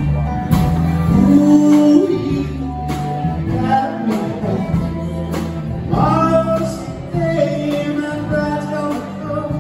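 Live band playing a song on electric guitar, acoustic guitar, electric bass and drum kit, with a melodic lead line over a steady drum beat.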